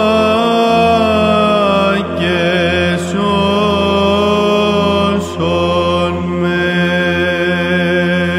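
Solo male voice singing Byzantine chant in long, slow melismatic notes over a steady held drone, the ison, with brief breaks for breath about two and five seconds in.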